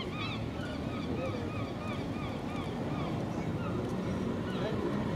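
A steady low rumble with wind on the microphone, and many short, high chirping bird calls repeating over it throughout.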